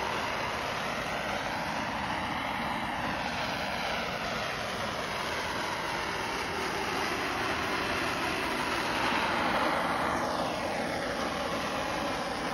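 Handheld gas blowtorch flame hissing steadily as it is played over a wooden board, charring the wood.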